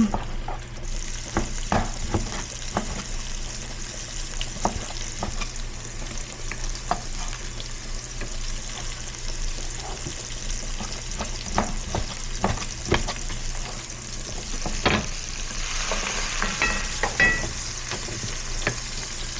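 Food sizzling in a hot frying pan while it is stirred, a steady sizzle with frequent clicks and scrapes of the utensil against the pan.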